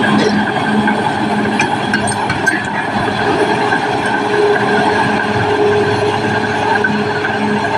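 Caterpillar D6R XL crawler bulldozer working, its diesel engine running steadily with the squeal and clank of steel tracks. A few short sharp clicks come about two seconds in.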